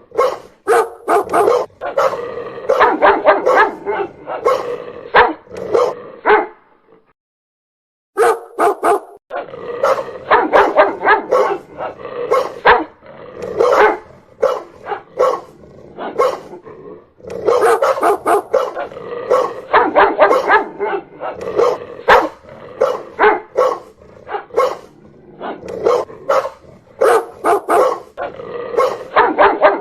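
Dog barking loudly and repeatedly in rapid runs of barks, with a short stretch of silence about seven seconds in.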